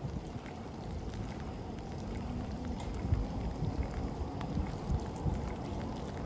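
A tram approaching slowly over wet rails: a low rolling rumble that grows slightly louder, with wind buffeting the microphone.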